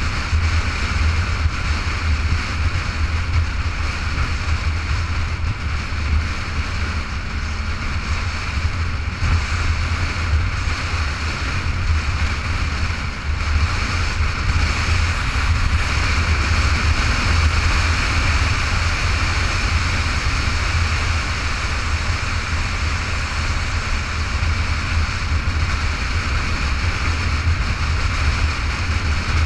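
Motorcycle riding at a steady cruising speed: wind buffeting the microphone, with a heavy low rumble, covers the engine and road noise.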